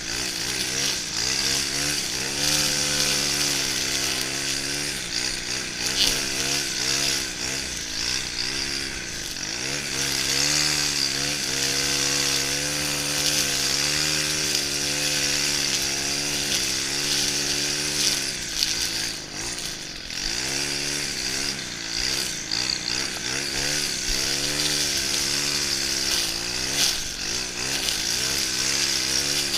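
Stihl FS 131 brushcutter's 36cc 4-MIX engine running at high speed while trimming grass. Its pitch wavers up and down as throttle and load change, with a steady hiss from the cutting head in the grass. The engine speed drops briefly about two-thirds of the way through and again near the end.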